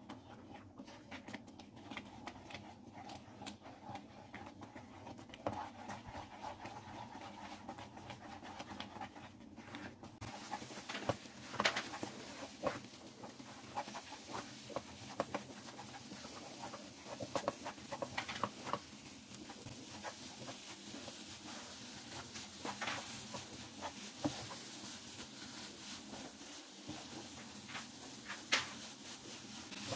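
Spatula stirring semolina halwa in a nonstick pan: a soft, steady stirring through the milky mixture at first. From about a third of the way in come repeated scrapes and taps as the thickened semolina is worked and pressed against the pan.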